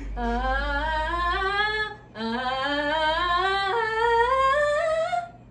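A woman singing two rising stepwise scales into a handheld microphone, the second run starting low again and climbing higher than the first before stopping.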